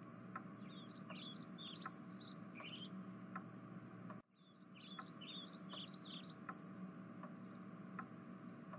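Faint background ambience of small birds chirping in quick twittering runs, two bursts of a couple of seconds each, over a low steady hum, with a soft tick about every three-quarters of a second. The whole bed cuts out for a moment about four seconds in, then resumes.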